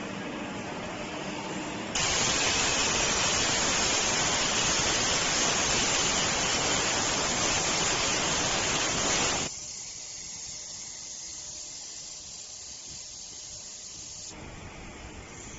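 CNC cutting machine cutting: a low machine hum, then a loud steady hiss that starts abruptly about two seconds in. The hiss stops suddenly after about seven and a half seconds, leaving a quieter high hiss that fades further near the end.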